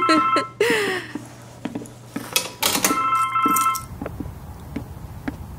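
Mobile phone ringing: an electronic ringtone of steady high tones. One ring sounds for about a second around three seconds in, and another is just ending at the start.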